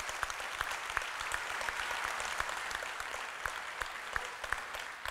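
Audience applauding, a crowd's clapping that dies down near the end.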